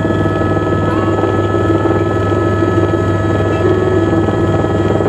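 Helicopter engine and rotor running steadily in cruise, heard from inside the cabin: a dense, even rumble with a steady high whine over it.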